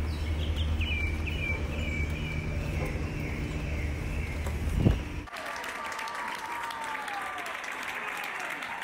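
A steady low outdoor rumble with faint high chirping and a brief thump. About five seconds in it cuts abruptly to a crowd applauding, with a falling whistle-like call.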